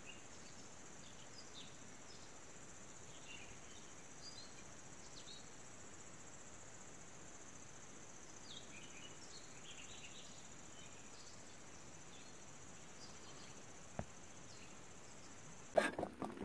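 Steady high-pitched insect chirring, with faint short calls scattered through it. A single sharp click comes near the end, then the chirring cuts off and loud knocking and clattering start.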